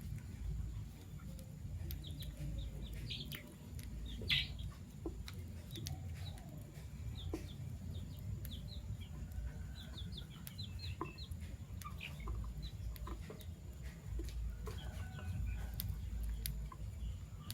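Fischer's lovebirds chirping: scattered short high chirps with one louder call about four seconds in, over a low background rumble.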